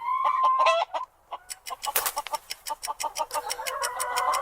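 Chickens clucking: a short drawn-out call at the start, then a quick, busy run of clucks that grows fuller toward the end.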